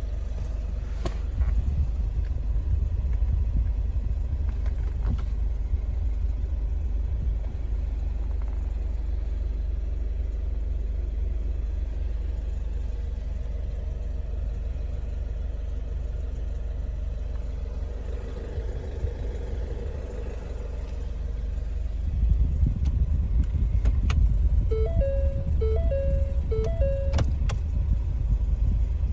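Ford S-Max engine idling, heard from inside the cabin as a steady low rumble that grows louder about three-quarters of the way through. Near the end comes a short run of electronic chime tones.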